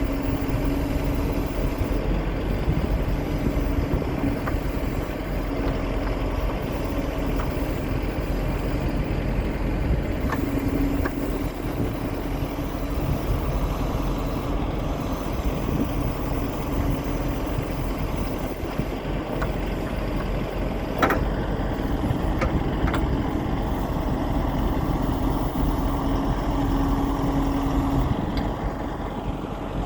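John Deere 310SJ backhoe loader's four-cylinder diesel engine running steadily, with a pitched hum that fades in and out and a few sharp clicks about two-thirds of the way through.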